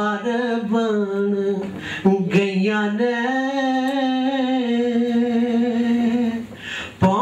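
A man singing a Punjabi ghazal unaccompanied, in long drawn-out phrases, with one long held note through the middle and a brief breath near the end.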